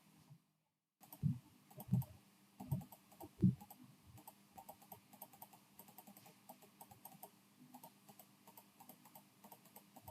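Faint clicking of a computer mouse and keyboard as settings are entered in software: four soft thuds in the first few seconds, then a run of quick light clicks.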